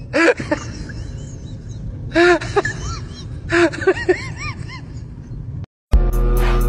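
Water falling from above and splashing in several short bursts, with brief rising-and-falling calls between them over a low hum. The sound cuts off near the end and loud music with a steady beat starts.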